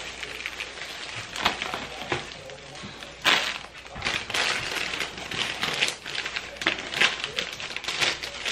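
Foil and plastic candy wrappers crinkling and rustling as small hands rummage through a bowl of wrapped chocolates, in irregular crackles with a louder one about three seconds in.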